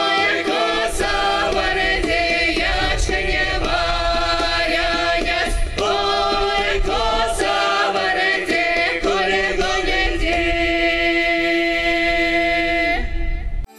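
Mordovian folk ensemble of men's and women's voices singing together in harmony. Near the end the song closes on a long held chord that stops abruptly.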